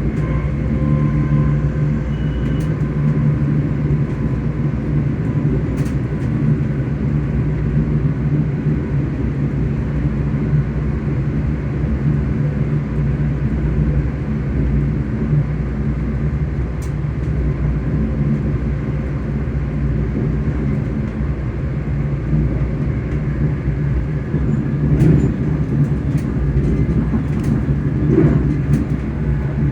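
Traction motors of a ScotRail Class 385 electric multiple unit humming steadily, with the low rumble of the train running on the rails. A few short knocks near the end.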